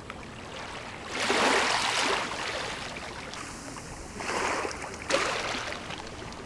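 Small bay waves lapping and washing onto a sandy shore, with two louder washes, about a second in and again about four seconds in.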